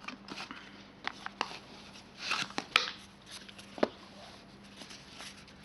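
A phone's retail box and its contents being handled: scattered light clicks and a few brief rustles.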